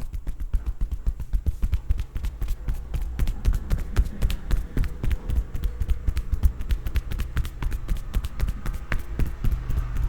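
Rapid percussive massage strokes, hands striking the body with dull thuds, several a second and continuing without a break.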